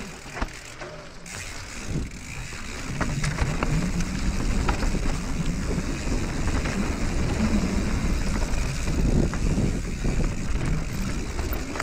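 Mountain bike rolling downhill on a dirt singletrack: wind rumbling on the microphone, with tyre noise on dirt and small clicks and rattles from the bike over bumps. It is quieter for the first couple of seconds, then grows louder and steadier as the bike picks up speed.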